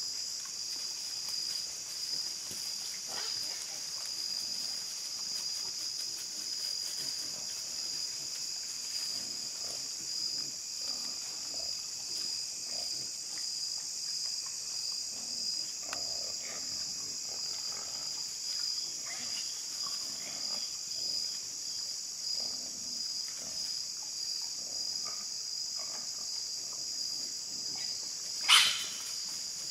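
A group of wild hogs feeding and grunting now and then, over a steady high insect drone. A single sudden loud, sharp sound cuts in near the end.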